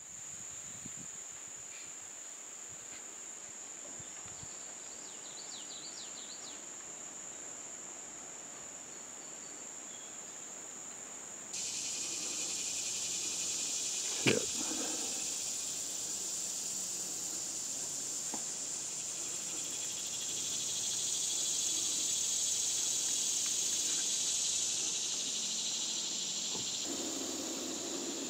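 Insects buzzing steadily: a high, even trill throughout, joined abruptly about a third of the way in by a louder, broader buzz that swells in the second half. A single click comes about halfway.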